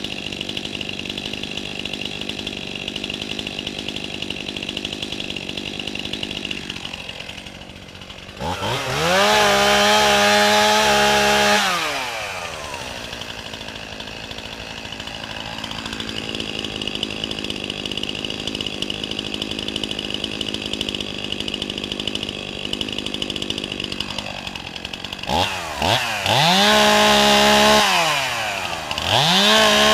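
Chainsaw engine idling, then revved up to a high, steady speed for about three seconds before dropping back to idle. Near the end it is revved up twice more in quick succession.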